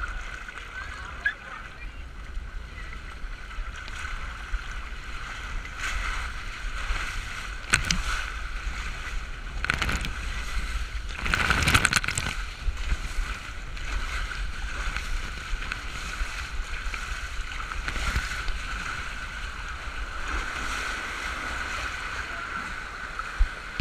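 Water rushing down a water slide, with a low wind rumble on the microphone. There are several short louder surges of rushing and splashing, the loudest about twelve seconds in.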